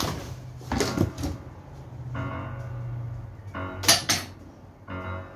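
Background keyboard music with a steady note underneath, broken by a few sharp knocks and clattering thumps, the loudest about four seconds in.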